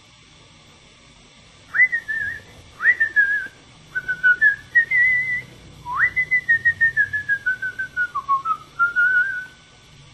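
A person whistling a tune in clear, pure notes. It opens with a few short phrases, each starting with a quick upward slide, and about six seconds in comes a longer phrase that slides up and then wavers gradually downward.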